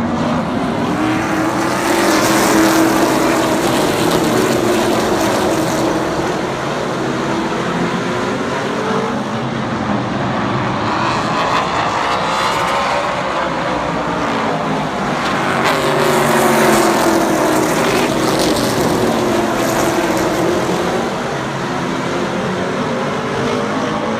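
Race car engines running at speed, their pitch rising and falling in repeated waves as cars go by.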